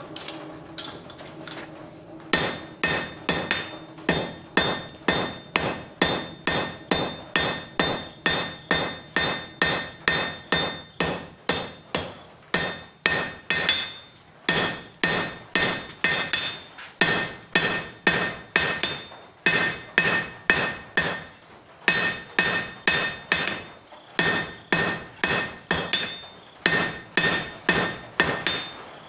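Hand hammer striking red-hot iron on an anvil at about two blows a second, each blow with a bright metallic ring, drawing out the long tapered point of a forged hook. The blows start about two seconds in, and the run breaks off briefly several times.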